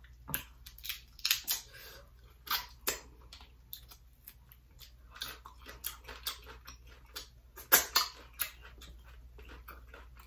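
Close-miked eating sounds: wet chewing and lip smacks, with boiled head-on shrimp being peeled by hand. They come as an irregular string of short clicks and smacks, the sharpest a little under eight seconds in.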